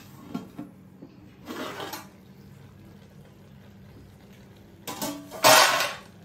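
Aluminium lid lifted off a large aluminium cooking pot, with metal scraping and clattering: a scrape about a second and a half in, and the loudest clatter near the end. A low steady hum runs underneath.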